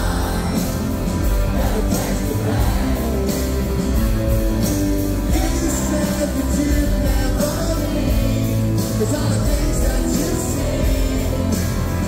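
Live rock band playing with singing over it and a steady drum beat, with cymbal hits about every second, in a large concert hall.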